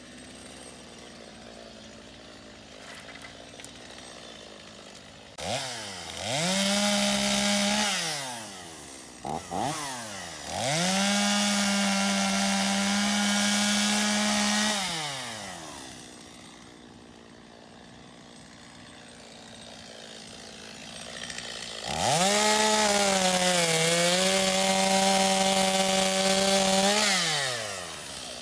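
Stihl MS250 two-stroke chainsaw idling, then revved up to full throttle three times, each time falling back to idle, with a quick blip of the throttle in between. During the last run, the longest at about five seconds, the engine speed sags briefly and recovers as the chain cuts into wood.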